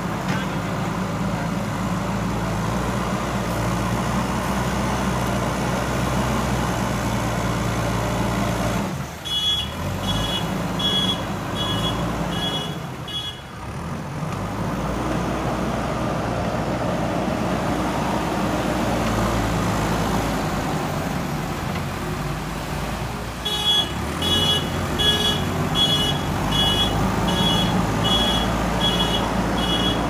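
JCB 3DX backhoe loader's diesel engine running steadily while the machine works in a shallow river. Its reversing alarm beeps at about one and a half beeps a second, for a few seconds near the middle and again from about three quarters of the way in.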